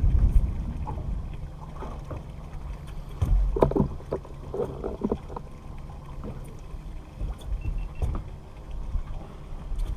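Small boat rocking on the water, with steady low wind and water noise on the microphone and a few knocks and clicks, the loudest a little over three seconds in.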